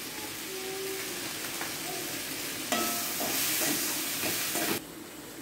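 Grated coconut, tomato, garlic and whole spices sizzling in oil in a metal pan over a low flame as a spatula stirs and scrapes them. The sizzle and scraping grow louder from about two and a half seconds in, then drop off suddenly near the end.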